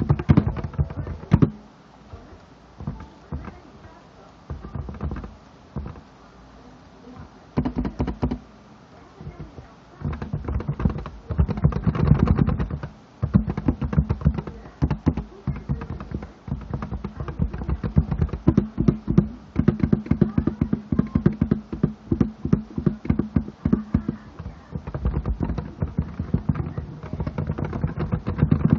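Typing on a Topre Realforce 87U keyboard with electrostatic capacitive (Topre) switches: soft, deep-sounding keystrokes, scattered at first, then fast continuous typing from about ten seconds in.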